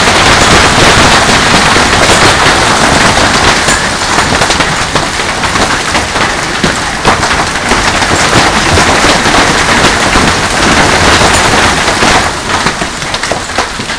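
Heavy hail pounding down, a loud, dense, rapid clatter of hailstones striking hard surfaces, easing off near the end.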